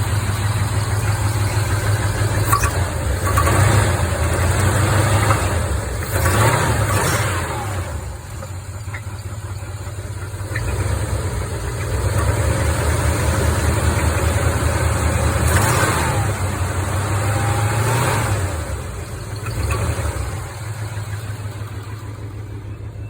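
1975 Chevy C20 pickup's engine running and revved up several times, the revs rising and falling before easing back near the end. The owner suspects a spun bearing.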